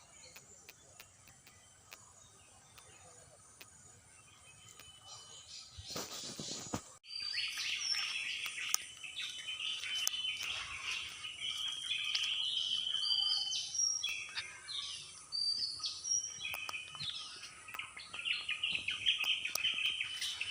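Many birds chirping and calling at once, overlapping high chirps and short whistles. The first six seconds hold only faint outdoor ambience; a short burst of noise ends in an abrupt cut about seven seconds in, after which the birdsong is loud and continuous.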